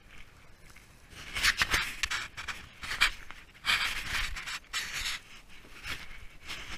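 Footsteps crunching and sliding on loose volcanic scree and gravel while walking down a steep slope, an irregular series of gritty scrapes about a second apart.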